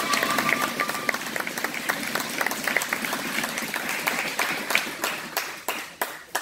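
Crowd of spectators applauding; the clapping thins out to a few scattered last claps near the end.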